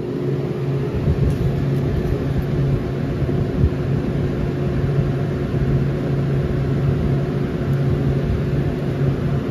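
Refrigerated glass-door display cooler running: a steady electric hum with a fainter higher tone over a whir of fans, and an uneven low rumble beneath.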